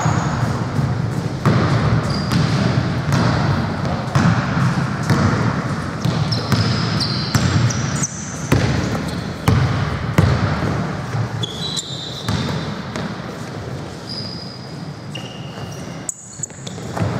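Basketball being dribbled and bouncing on a hardwood gym court, with players' footsteps and several short, high-pitched sneaker squeaks.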